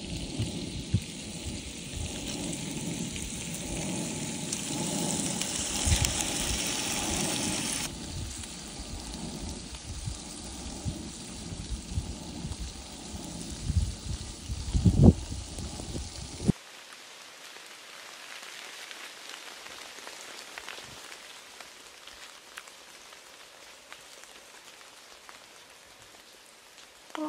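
Rain falling steadily on brush and wet leaves, an even patter with a few louder taps and knocks. About two-thirds of the way through it drops abruptly to a faint hiss.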